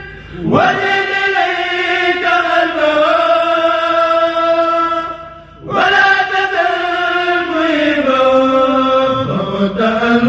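A kourel, a group of Mouride chanters, singing a xassida together in unison, drawing out long held notes that slide slowly in pitch. The singing breaks off briefly a little past halfway, then picks up again.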